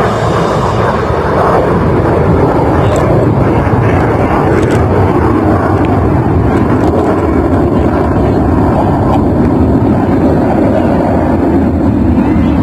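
Loud, steady jet noise from a formation of F/A-18 Hornet fighter jets flying overhead, a deep rumble that swells during the first couple of seconds and then holds.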